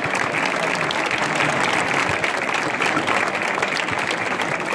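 A small crowd applauding steadily, with individual hand claps standing out.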